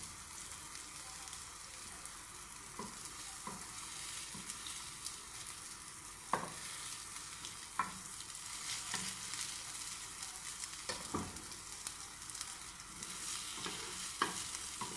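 Bread slices frying in butter in a nonstick pan: a steady light sizzle. A metal spatula and fork click and scrape against the pan a handful of times as the slices are turned and pressed.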